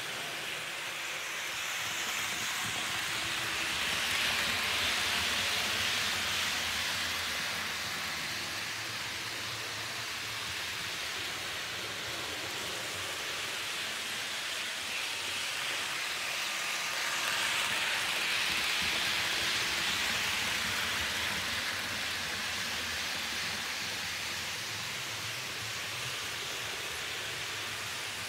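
HO-scale model trains, among them the RAe TEE II Gottardo units, running on the layout track: a steady rolling whir that swells twice as trains pass close.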